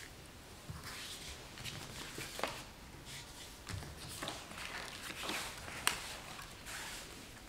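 Cut-out sheets of coloured paper and card being picked up, slid and laid down on the floor: intermittent soft rustling and scraping with light taps, the sharpest tap about six seconds in.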